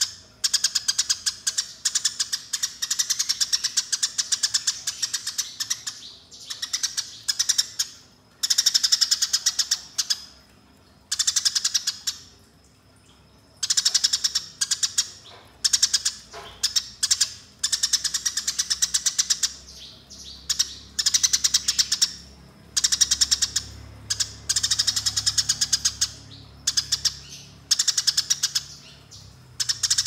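Eurasian tree sparrow giving its agitated 'fighting' chatter: very fast, rolling runs of sharp chirps, many per second. The runs last one to three seconds and are broken by short pauses.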